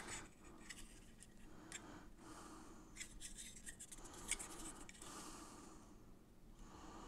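Faint clicks and rubbing of two small plastic smartwatch charging docks being turned over and handled in the hands, with a few soft rustles.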